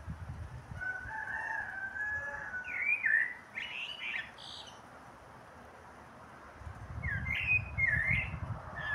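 Common blackbird singing: a phrase of low fluted whistles running into higher, squeaky twittering, then a shorter twittering phrase a few seconds later. A low rumble sits underneath at the start and near the end.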